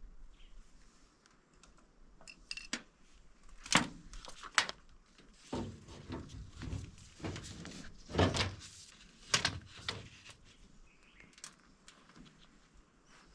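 Scattered knocks and clatter, as of hard objects being handled and set down, with a few sharp clicks.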